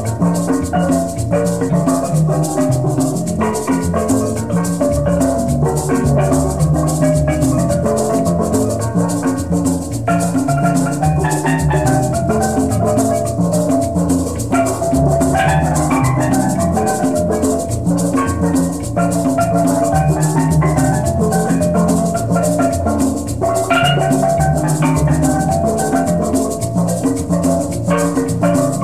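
Background music with a steady, fast beat and percussion.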